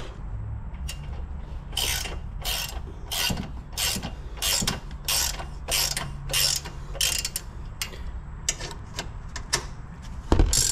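Hand ratchet wrench clicking in steady strokes, about one and a half a second, as a bumper-support bolt is backed out; lighter, quicker clicks follow near the end.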